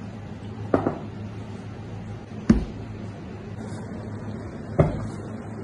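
Three short knocks, about a second in, in the middle and near the end, over a steady low hum.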